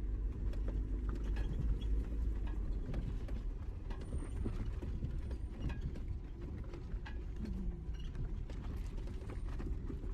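An off-road vehicle crawling over a rough, rocky trail, heard as a steady low rumble with scattered clicks, knocks and creaks from the suspension, body and rocks under the tyres.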